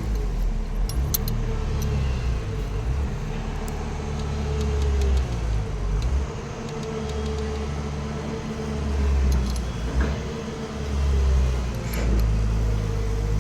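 A machine runs with a low steady hum that swells and drops away several times, a wavering higher tone over it, and scattered metal clinks of tools.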